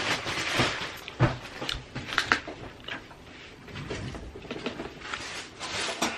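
Irregular handling noise: scattered small clicks, knocks and rustling, cutting off abruptly at the end.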